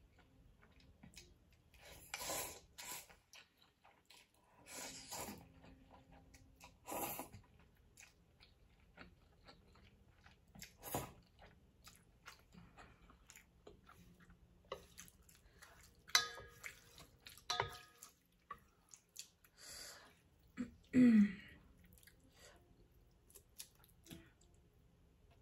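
A person slurping and chewing instant ramen noodles close to the microphone: a string of short wet slurps and soft chewing clicks with pauses between them. Near the end comes one louder short vocal sound falling in pitch.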